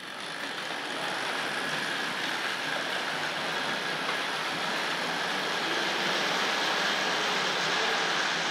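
Two Hornby OO-gauge model Class 5 steam locomotives double-heading a train of coaches on sectional track: a steady whirr of their electric motors and the clatter of wheels on the rails. It starts abruptly as the train moves off and grows a little louder.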